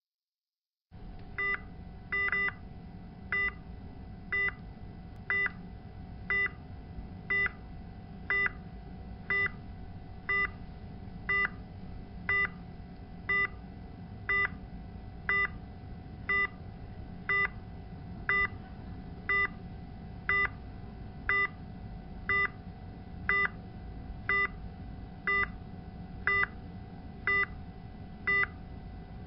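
Patient monitor alarm beeping about once a second, short beeps that start about a second in, over a steady hum and room noise.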